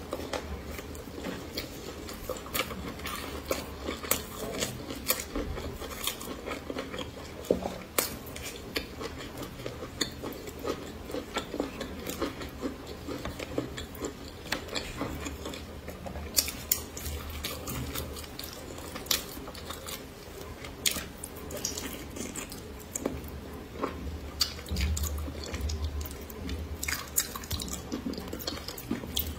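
Close-miked eating: chewing and wet mouth sounds from someone eating spicy braised fish, with frequent short sharp clicks of chopsticks against the bowl.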